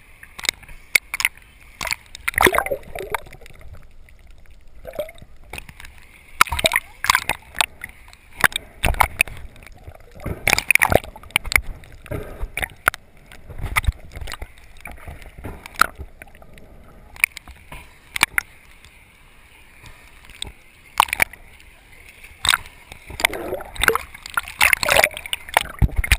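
Water sloshing and gurgling around a GoPro camera as it moves at the surface and under water, with frequent sharp clicks and knocks on and off throughout.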